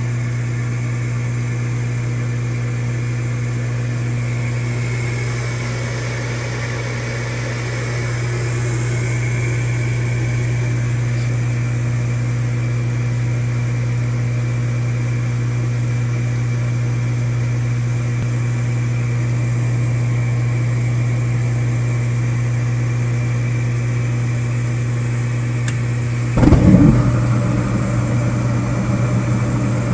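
Newly replaced furnace inducer blower motor running with a steady hum. A sudden, louder rushing noise joins about 26 seconds in and carries on to the end.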